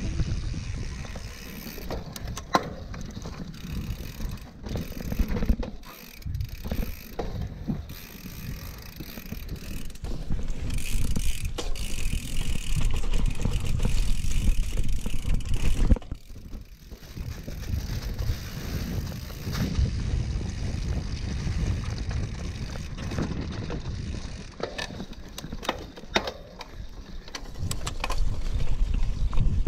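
Mountain bike riding a forest trail: a steady rolling rumble from the tyres on the dirt, with frequent rattles and clicks from the bike over bumps. It grows louder about ten seconds in and drops off abruptly around sixteen seconds in.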